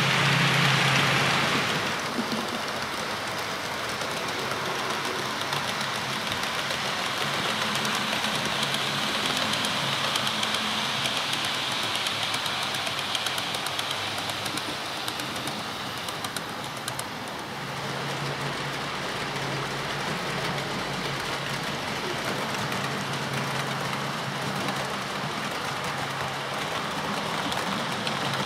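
OO gauge model trains running along the layout track: a steady rolling rumble of small wheels on rail with a low motor hum. It is louder for the first two seconds and changes again about seventeen seconds in.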